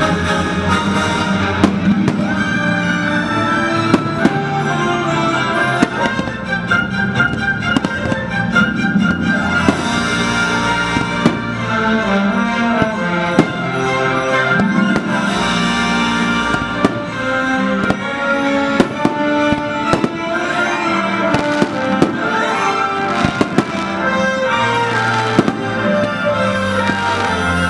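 Fireworks show: orchestral show music plays over loudspeakers while fireworks go off throughout, with many sharp bangs and pops.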